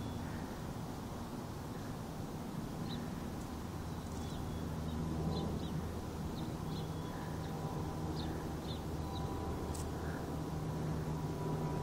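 Steady low hum with faint, short, high chirps scattered through it.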